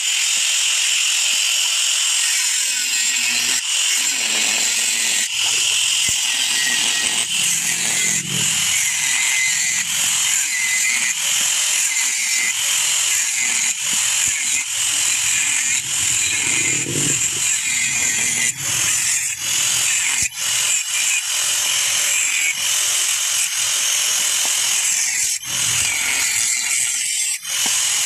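Handheld electric angle grinder with a thin disc cutting into the metal shell of a motorcycle muffler, running as a steady high-pitched grinding screech with brief dips as the disc bites and shifts. The muffler is being cut open so its insides can be removed.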